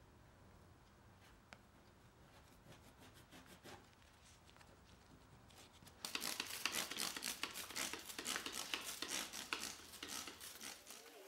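A plastic scraper working dried glue off a laminate tabletop in faint, scratchy strokes. About six seconds in, much louder rapid scrubbing strokes start abruptly, then stop just before the end.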